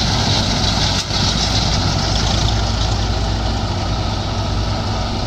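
Combine harvester and a Swaraj 744 4x4 tractor running together, a steady engine drone with the combine's threshing machinery working.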